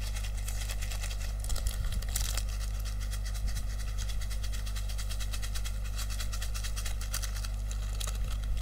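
Steady low electrical hum, with a few faint crinkles of a small plastic packet being handled, about two seconds in and again near the end.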